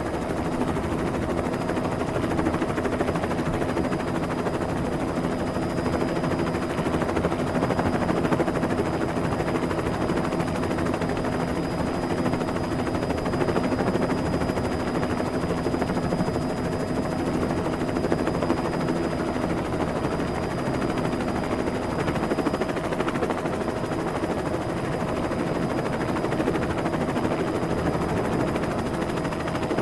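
Helicopter sound effect: a steady rapid rotor chop over a constant engine hum, with a thin high whine.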